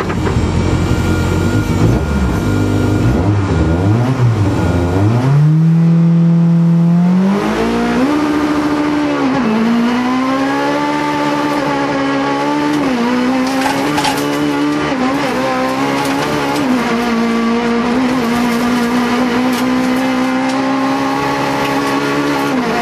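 Rally car engine heard from inside the cockpit at full stage pace, revving high with its pitch rising through the gears, with brief dips at shifts and throttle lifts.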